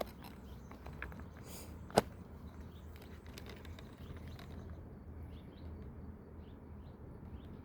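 Outdoor ambience over a low steady rumble: a brief swish and then a sharp click about two seconds in, and from about halfway short high chirps, likely a small bird, repeating about twice a second.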